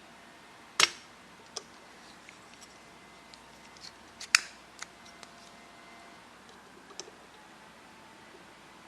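A few sharp, separate clicks and snaps of small hand tools on the bench, about five in all, the loudest about a second in and midway through.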